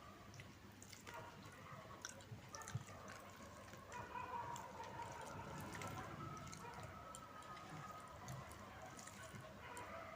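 Faint eating sounds: soft wet clicks and smacks of chewing.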